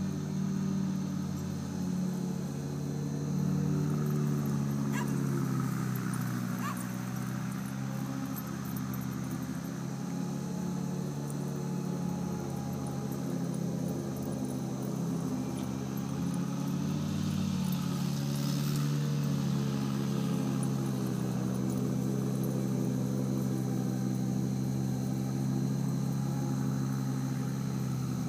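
A motor running steadily, a low drone whose pitch wavers slowly up and down, like an engine idling.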